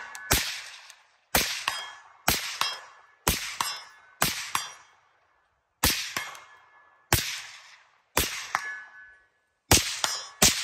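A 14.5-inch mid-length AR-15 fitted with a YHM Turbo T2 suppressor firing about ten suppressed shots, roughly one a second with a short pause midway. Each shot leaves a brief ring from the steel targets downrange.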